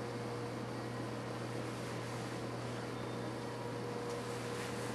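Steady machine hum and hiss in a kitchen, with a faint constant tone held throughout.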